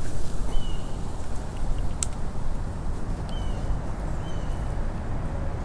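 A bird calling with short, falling whistled notes, four times, over a steady low rumble of distant traffic or wind. A single sharp click about two seconds in.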